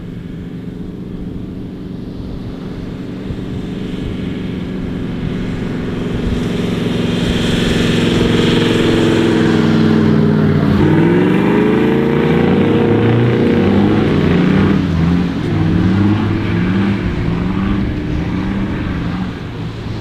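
Two four-wheel drives driving on beach sand and passing close by. The engine note grows louder as they approach and is loudest as they pass about halfway through. Then the revs climb, and rise and fall in short repeated steps as they pull away.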